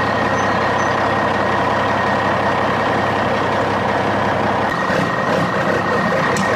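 Heavy truck running as it drives slowly: a loud, steady mechanical noise with a constant high tone running through it. A few sharp clicks come near the end.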